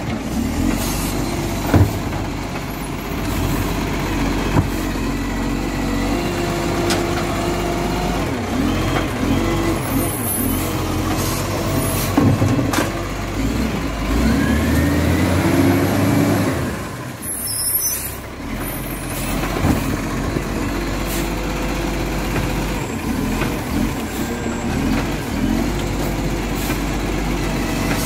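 Iveco side-loader garbage truck running at the kerb while its hydraulic arm lifts and tips wheelie bins into the body. The engine drones steadily, with a rising hydraulic whine as the arm works and sharp knocks as bins hit the hopper.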